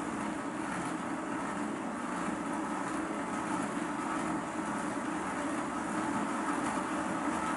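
Model locomotive's electric motor and driving wheels running on a rolling road, a steady whirr slowly getting louder as it picks up speed under a high DCC acceleration delay.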